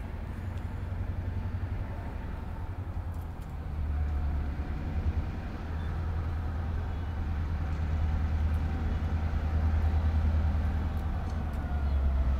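Approaching train locomotive running with a steady low rumble that slowly grows louder.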